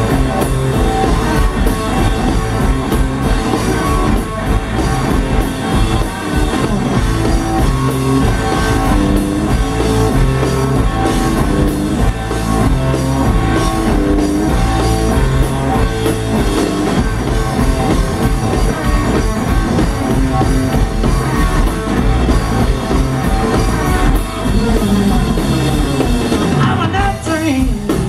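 Live blues-rock band playing: electric guitar over electric bass and a drum kit, at a steady loud level. Near the end a note slides down in pitch.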